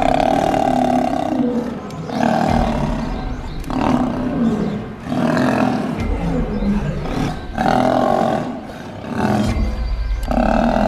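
Lions fighting: a string of loud snarls and roaring growls, about six in all, each lasting about a second, as lionesses attack a male.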